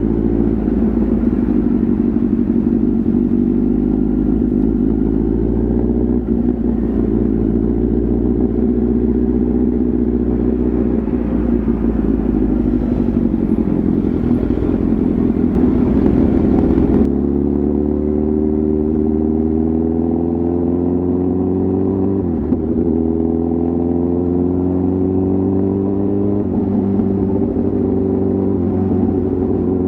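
Kawasaki ZX-10R's inline-four engine and exhaust under way. At first it runs steadily under a hiss; about seventeen seconds in the hiss stops. From there the engine pitch keeps rising, dipping briefly three times as it is shifted up through the gears while accelerating.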